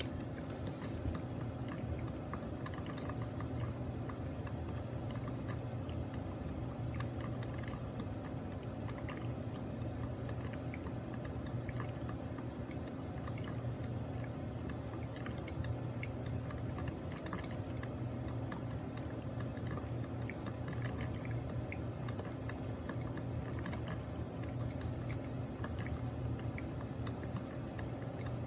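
Mr. Coffee BL5 4-cup drip coffee maker brewing: a dense run of irregular crackling, spitting clicks as the heated water sputters up through the machine, over a steady low hum.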